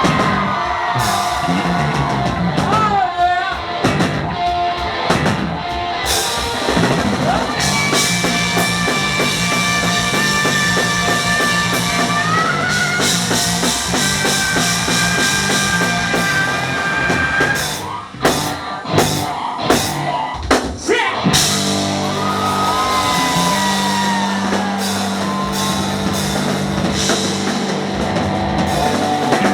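Live hard rock band playing loud: drum kit, distorted electric guitars and bass, with long held and bent lead-guitar notes. About two thirds of the way through the band breaks into a few short stops punctuated by accented full-band hits, then plays on.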